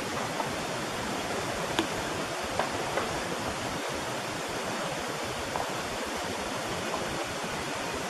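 Steady hiss of a boosted (enhanced) outdoor recording, with a handful of faint, sharp clicks or knocks scattered through it, the clearest about two seconds in.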